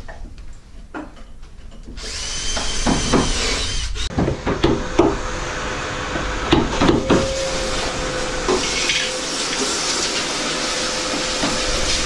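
A few clicks and knocks of hand tools on timber, then about two seconds in a power tool starts up and runs steadily, with knocks of hand work over it for the next few seconds.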